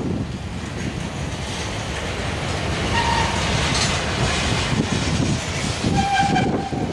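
Freight train's covered hopper cars rolling past, a steady rumble and clatter of steel wheels on rail. Two short high tones sound over it, one about three seconds in and a longer one near the end.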